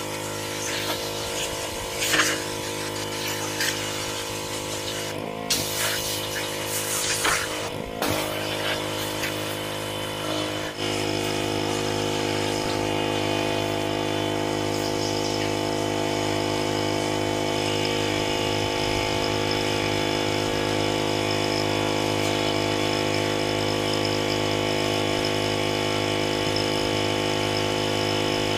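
Pressure washer's engine running steadily, with a few knocks and clatters in the first ten seconds. About eleven seconds in the engine sound jumps louder and fuller, then holds steady.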